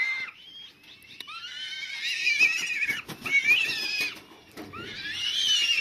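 Juvenile buzzard calling: three drawn-out, high, wavering cries one after another.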